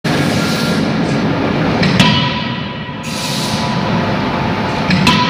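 CNC fully hydraulic die forging hammer striking a red-hot workpiece in closed dies: two heavy blows about three seconds apart, each leaving a metallic ring, over the steady noise of the running machine.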